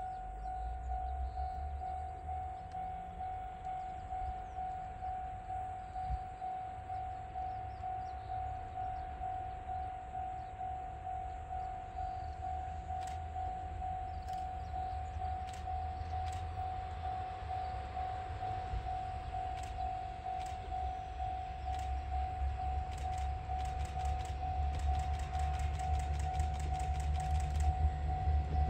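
A level-crossing alarm rings as one steady high tone, over the engine rumble of an approaching three-car Aizu Railway AT-series diesel railcar train. The rumble grows louder over the last few seconds as the train nears.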